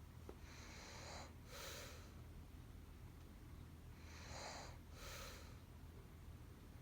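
Soft snoring of a sleeping woman: two breaths, each an in-and-out pair of short noisy swells, about three and a half seconds apart, over a steady low hum.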